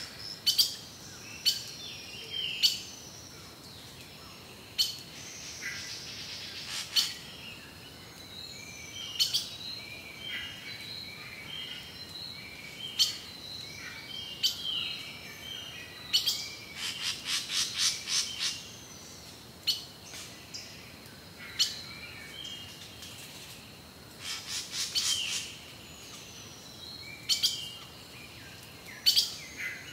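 Birds chirping and calling: many short, sharp chirps and whistles, with a quick run of repeated chirps about halfway through.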